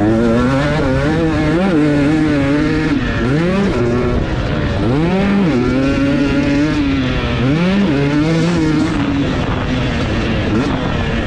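Husqvarna TC250 two-stroke motocross bike engine on track, revving hard and changing pitch constantly with the throttle. The pitch drops sharply and climbs again several times, notably near the start, about halfway through and again a few seconds later.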